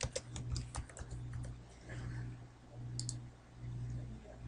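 Computer keyboard typing, a quick run of keystrokes over the first second and a half, then a sharp mouse click about three seconds in, over a low steady hum.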